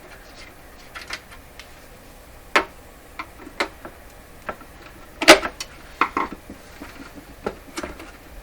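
Irregular small clicks and knocks of hand tools and the radio's cabinet being handled on a workbench, the loudest knock about five seconds in.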